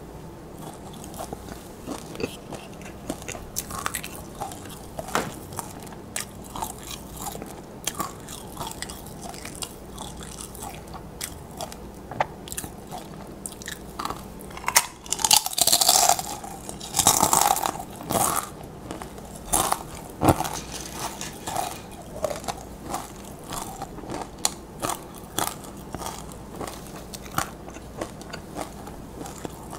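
Crisp tortilla chips (nachos) being bitten and chewed close to the microphone: crunches and small crackles throughout, with two loud, long crunching bites about halfway through.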